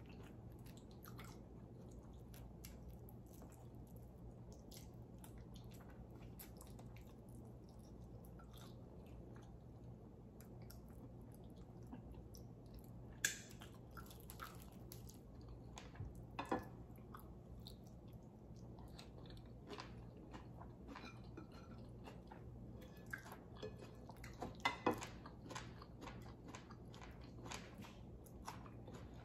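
Quiet chewing of fried fish eaten by hand, with many small wet clicks and a few sharper ticks, over a low steady hum.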